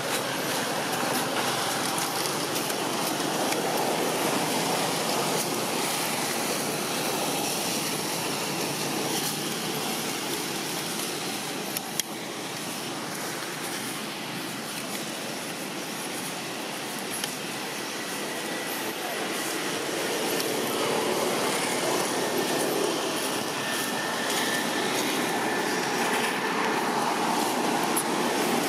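Steady rushing ambient noise with no clear single source, with one sharp click about twelve seconds in.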